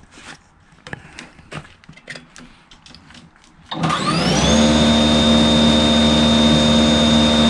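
Litheli 40V battery-powered single-stage snowblower: a few light knocks of handling, then near the middle its electric motor switches on, whines up to speed within half a second and runs steadily with a high, even whine. The sound shows the battery, which had not charged at first, now holds a full charge and drives the machine.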